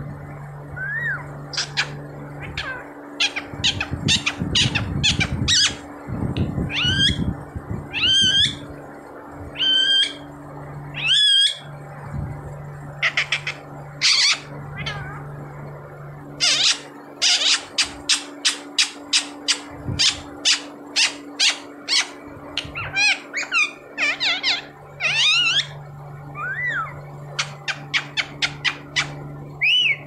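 Indian ringneck parakeet calling: loud, sharp, high-pitched squawks, some of them wavering, given singly and in runs, with a fast string of short calls about halfway through.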